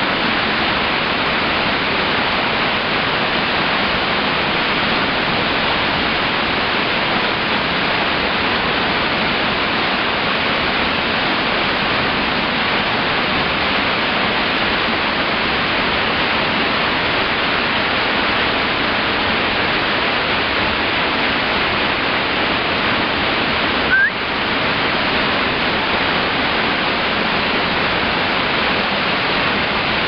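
Waterfall plunging into a narrow rock gorge, heard from inside it: a loud, steady rushing hiss of falling water. A brief rising squeak cuts through about three quarters of the way in.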